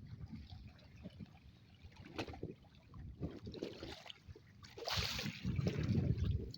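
Water lapping and splashing against a small boat on open water, with a louder rush of noise about five seconds in.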